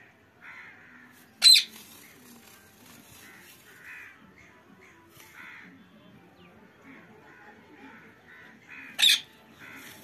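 Rose-ringed (Indian ringneck) parakeets calling: two short, loud, harsh screeches, one about a second and a half in and one near the end, with softer short calls between them.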